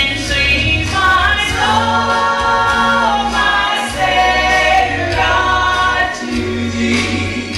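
Gospel song: voices holding long, sliding notes over a steady low bass accompaniment.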